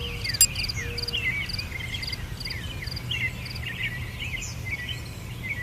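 Rainforest ambience: many birds chirping in quick falling calls over a regular pulsed insect chirp, with a steady low rumble underneath. There is a single sharp click about half a second in.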